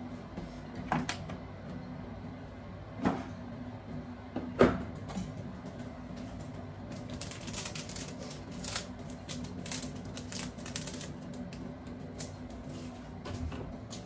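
Household handling sounds: three sharp knocks, the third the loudest, then several seconds of quick, light clicking and rustling, over a steady low hum.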